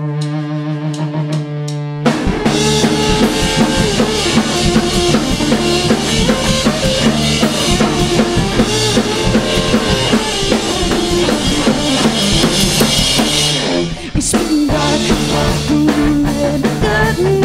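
A rock band plays the instrumental intro of a glam-punk song live. It opens with a single held note and light rhythmic ticks, then the full band of drum kit, bass and guitars crashes in about two seconds in. The band breaks off for an instant near the end and comes straight back in.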